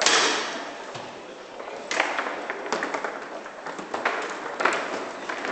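Foosball rally on an Ullrich table: sharp knocks and clacks of the ball being struck by the plastic players and hitting the table walls. A loud hit comes at the start and a few more follow about a second or two apart.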